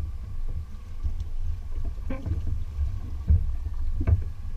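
Wind buffeting the microphone in a low, uneven rumble, with water slapping against the hull of a small fishing boat at sea and a few dull knocks in the second half.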